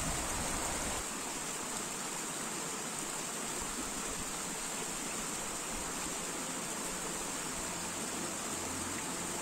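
A small mountain stream running over rocks and little cascades, a steady rushing hiss. A low rumble of wind on the microphone stops about a second in.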